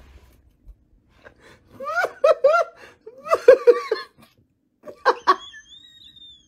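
A person laughing in high-pitched, short rising-and-falling bursts, two runs of them, then a brief burst about five seconds in. A thin, high, steady whistle-like tone follows near the end.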